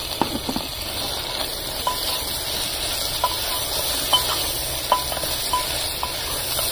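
Onion, potato, soya chunks and freshly added tomatoes frying in oil in a pan with a steady sizzle. A spoon stirs them, striking the pan with short ringing clinks about once a second.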